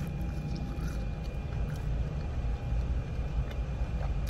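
Steady low hum of a car idling, heard inside the cabin, with faint soft clicks of chewing.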